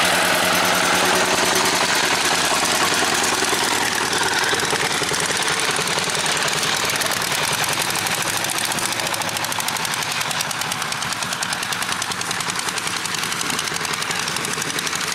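Single-cylinder diesel engine of a two-wheel walking tractor running hard, with a rapid, even exhaust beat. It grows a little fainter as the tractor pulls away.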